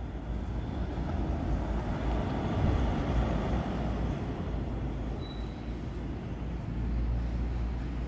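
Street traffic: a vehicle passing, its noise swelling to a peak about three seconds in and then fading, over a steady low rumble.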